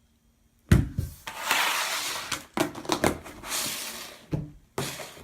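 Slime containers being handled: a sharp knock, then rustling with several smaller knocks and clicks.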